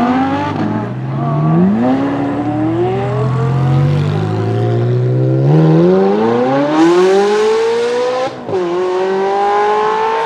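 Supercar engines accelerating hard away: an Audi R8's V10 revs climbing and falling back at upshifts, then a Ferrari 360 Spider's V8 revving up through the gears in the second half, with a sharp gear-change dip about eight seconds in.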